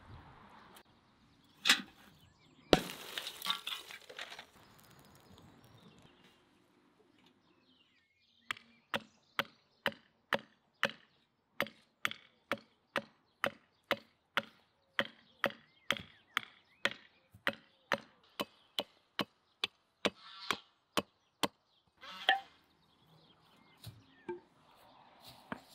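Hatchet chopping the end of a wooden stake held upright on a tree stump: a long run of sharp, even blows, about two a second, shaping the stake to a point. A couple of single knocks and a short rustle come in the first few seconds.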